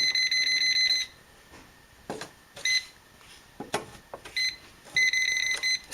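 Voltage tester beeping at an outlet slot: one steady high-pitched beep for about a second, then a few shorter beeps, with faint knocks of handling between them. The beeping signals live voltage in a slot the owner expects to be dead, the sign of an outlet he finds wired backwards (reversed polarity).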